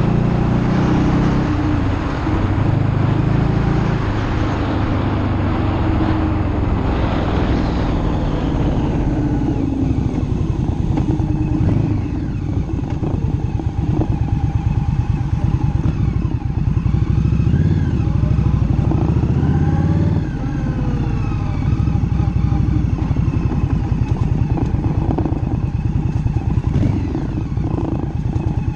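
2018 Indian Scout Bobber's 1133 cc V-twin with a stage 1 exhaust, running under way. For the first nine seconds or so a heavy wind rush covers it. After that the engine is plainer, its note rising and falling with throttle and gear changes.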